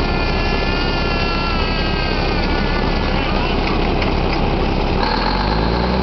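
Loud, steady drilling-rig machinery running during pipe tripping. A high whine sinks slightly in pitch over the first few seconds, and about five seconds in a low engine note rises and then falls.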